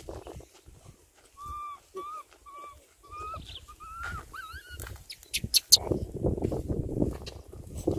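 A series of about eight short, clear calls, a few of them rising at the end, followed from about six seconds in by footsteps and rustling through dry scrub.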